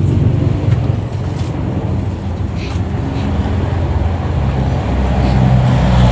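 1995 Honda Civic engine running, getting a little louder near the end, with a knocking-like noise. The mechanic traces the noise to a vibrating pump pulley that lets the belt strike its cover.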